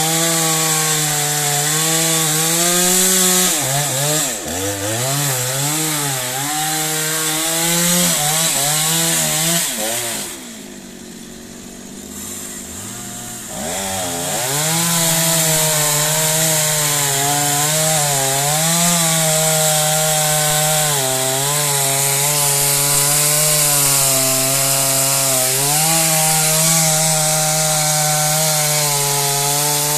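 Stihl MS 360 two-stroke chainsaw cutting lengthwise down a large tree trunk, its engine pitch dipping and recovering under load. About a third of the way in, the engine drops lower and quieter for about three seconds. It then revs back up and cuts steadily.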